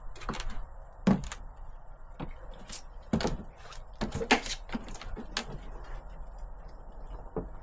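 Irregular clunks and knocks of metal parts being handled and worked on at a Land Rover Defender's bonnet and its hinges, about seven sharp hits spread unevenly through a few seconds.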